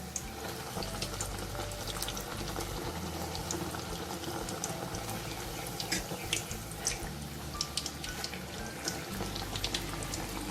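Batter-coated raw banana slices (bajji) deep-frying in hot oil in a kadai: a steady sizzle with scattered sharp crackles and pops.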